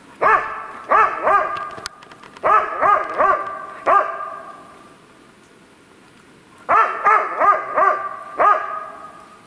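Laika hunting dog barking: about a dozen loud barks in three bursts, each bark ringing on briefly after it.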